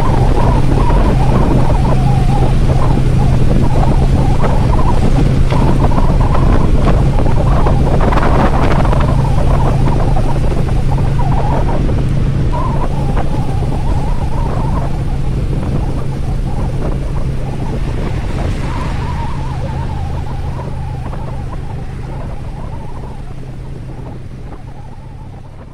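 TVS Apache RTR motorcycle's single-cylinder engine running at a steady cruise, with wind noise on the helmet microphone. The sound fades out gradually over the second half.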